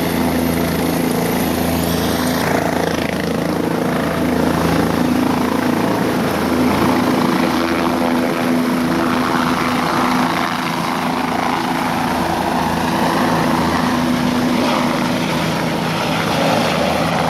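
Turbine helicopter lifting off and flying away, its rotor and engine running steadily. The steady low hum gives way to a broader rush late on as it climbs away.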